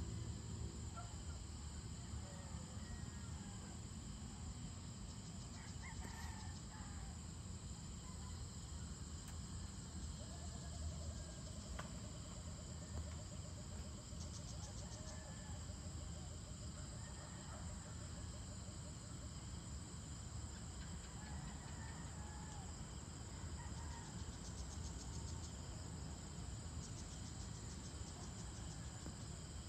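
Dusk chorus of crickets and other insects, steady throughout, with stretches of rapid pulsing about fourteen seconds in and again near the end. Underneath is a low, steady rumble, and a few faint bird chirps and a brief trill come through.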